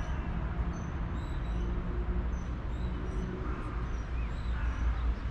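Outdoor city ambience: a steady low rumble with faint, scattered bird chirps.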